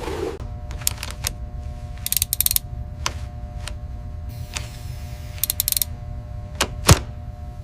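Machinery clicking and ratcheting over a low rumble and a steady hum, with quick runs of clicks about two seconds in and again near the middle, and one heavy clank near the end.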